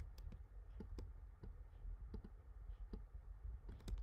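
Faint, irregular clicking from a computer mouse and keyboard, a dozen or so light clicks over a low steady hum.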